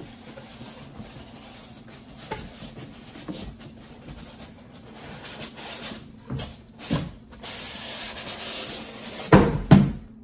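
Cardboard and styrofoam packing rubbing and scraping as a foam-packed air fryer oven is slid up and out of its shipping carton, with scattered knocks. A longer sliding scrape builds toward the end, then two loud thumps come close together.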